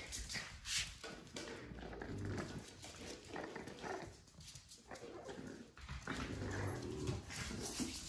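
French bulldog puppies play-wrestling, making short, irregular dog vocal sounds on and off.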